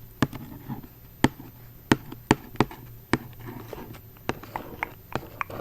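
Hands handling a packaged box of chocolates: a scatter of sharp, irregular clicks and taps on the packaging, with a few louder ones between about one and two and a half seconds in.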